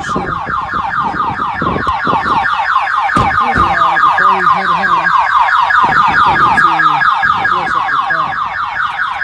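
1997 Pontiac Firebird's alarm sounding, a loud rapid chirp repeating several times a second. The alarm has been triggered, and its anti-theft system is keeping the car from starting until it is unlocked.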